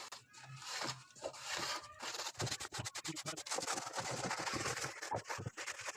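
Rapid, irregular scraping and rubbing strokes, which turn into a dense run of quick scratches about two seconds in.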